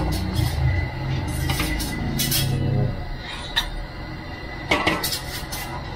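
Metal ladle clinking and scraping against a metal wok, with a few sharp clinks in the second half. Background music runs under the first half.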